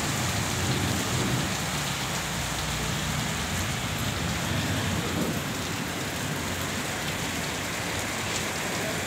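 Heavy rain falling steadily on a street and rooftops.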